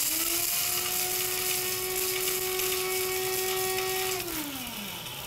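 Braun electric blade grinder grinding whole spices (cardamom seeds, cinnamon stick, white peppercorns, fennel seeds): a steady motor whine over a hiss. It is switched off about four seconds in, its pitch falling as the motor spins down.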